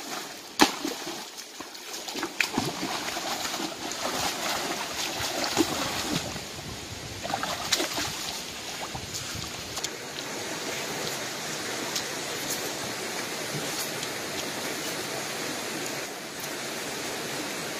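Shallow stream water flowing, with splashes and sloshing as hands grope through the water among rocks. The sharp splashes fall in the first half, and a steadier wash of water follows.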